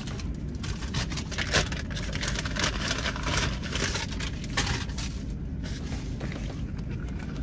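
Paper food wrapper rustling and crinkling in a dense run for a few seconds, over a steady low rumble inside a car.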